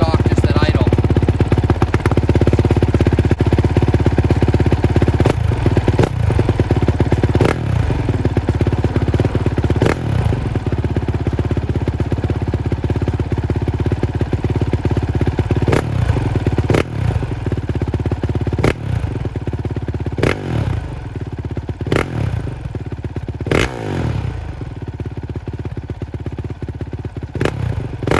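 Honda CRF450R single-cylinder four-stroke motocross engine running through an FMF 4.1 RCT slip-on muffler with its spark-arrester core in. It idles steadily and is blipped with the throttle about ten times, each rev falling back to idle, more often in the second half.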